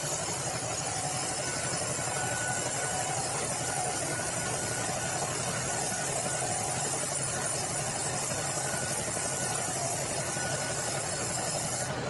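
Sawmill band saw and its drive engine running steadily: a constant low drone under a high, even hiss.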